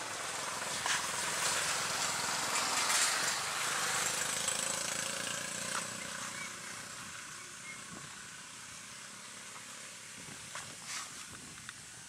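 A passing engine, with a hiss and a faint hum that swell over the first few seconds and fade by about halfway. A few short sharp clicks or calls come through on top.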